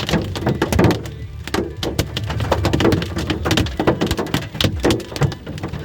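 Large hailstones, golf-ball-sized and bigger, hitting a car's roof and windshield, heard from inside the car: a dense, irregular clatter of hard knocks.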